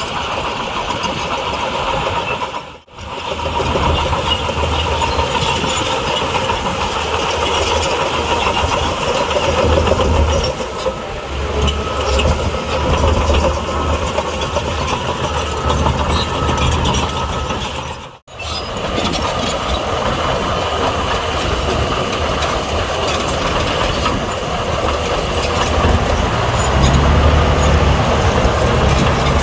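Heavy bulldozer diesel engine working under load as it pushes soil, its low rumble swelling and easing. The sound cuts out briefly twice.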